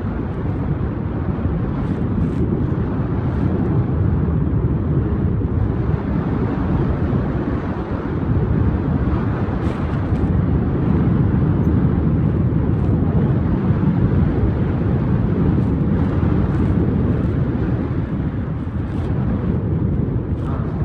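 Wind buffeting the microphone in flight under a paraglider: a steady, loud, low rushing noise.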